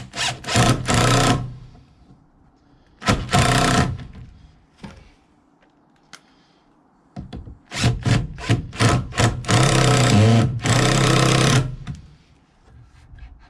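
Cordless power driver running in three bursts, the last and longest about four seconds, driving screws into a wooden 4x4 ramp to fasten a hinge, with a few short knocks in between.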